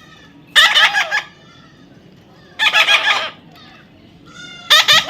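Young parrot squawking: three loud, harsh calls about two seconds apart.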